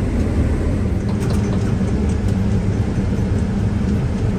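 Combine harvester running steadily while cutting soybeans: a continuous low engine and machinery drone.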